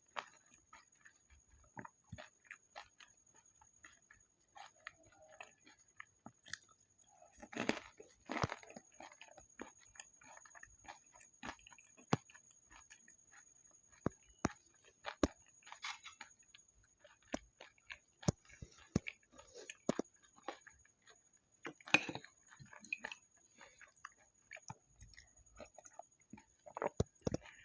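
Close-miked chewing of pani puri: the crisp puri shells crunch between the teeth, with many small wet mouth clicks. The crunching is loudest about eight seconds in and again past twenty seconds.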